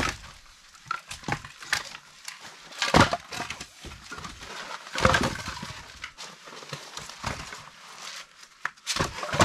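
Split firewood logs being stacked into a pile, knocking and clattering against each other in irregular strokes, with a few louder knocks a couple of seconds apart and lighter scrapes and taps between them.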